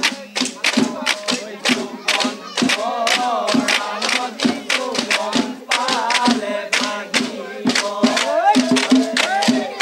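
Group singing of Bihu songs over a fast, steady beat of sticks knocked on a long bamboo pole, several knocks a second.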